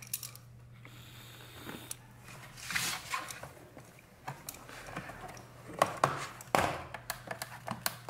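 Plastic snap-fit clips of an Asus Vivobook 15 laptop's bottom cover clicking and snapping loose as a pry tool is worked along the seam, with a short scrape partway through. The loudest snaps come about three-quarters of the way in, over a steady low hum.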